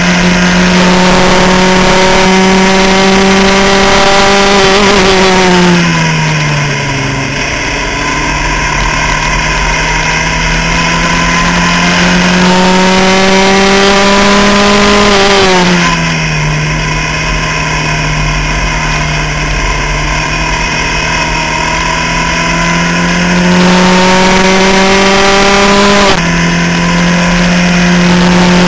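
Skip Barber formula race car's engine heard from onboard, held at high revs with its pitch climbing slowly. The revs and loudness fall away twice, about six and sixteen seconds in, then climb again, and near the end the pitch drops suddenly in a quick step.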